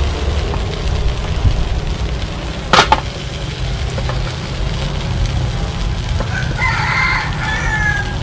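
A rooster crowing once near the end, one long call. About three seconds in there is a single sharp knock, the loudest sound, over a steady low rumble.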